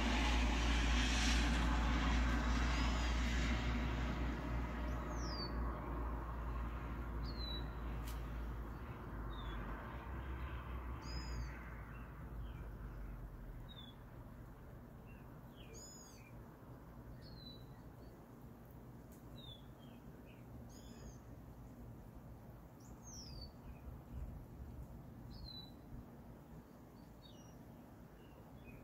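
A low rumble, like a vehicle going by on the road, fades away over the first several seconds. After that, a bird gives short, high chirps that fall in pitch, repeating every second or two over a quiet outdoor background.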